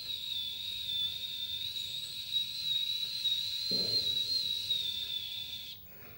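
A man imitating a milk cooker's whistle with his mouth: one long, high, slightly wavering whistle over a hiss, like steam escaping at the boil. It cuts off sharply near the end.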